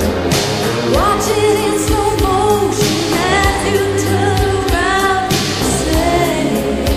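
A song with a singing voice over a steady bass and drum beat.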